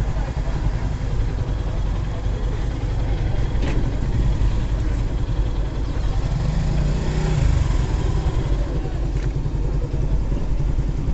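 Motorcycle and road-traffic engines running with a steady deep rumble. A vehicle's engine note swells briefly a little past the middle.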